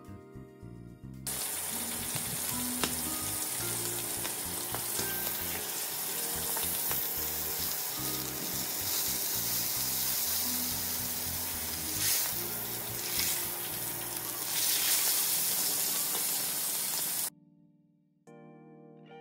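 A large piece of meat sizzling and spattering in hot oil in a frying pan, with louder surges of spatter now and then. The sizzling starts about a second in and cuts off abruptly near the end, with background music before and after it.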